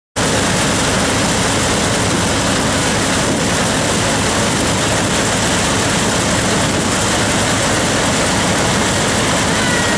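Steam-driven wheat threshing machine running steadily at work: a loud, dense, unbroken mechanical din that starts abruptly.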